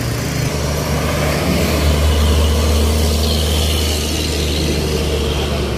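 Heavy cargo truck's diesel engine running under load close by on an incline: a steady low drone with road noise, loudest around two seconds in.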